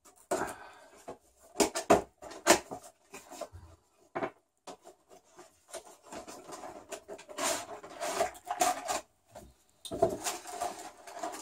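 A small cardboard collectible box being unpacked by hand: a hobby blade slits the seal, the flaps are opened and a clear plastic clamshell tray is pulled out. It is a run of sharp clicks and scrapes, with longer crinkling and rustling of the plastic near the end.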